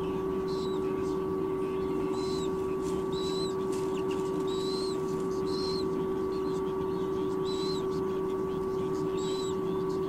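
White-bellied sea eagle nestlings giving short, high peeping calls, about one a second. A steady hum runs underneath.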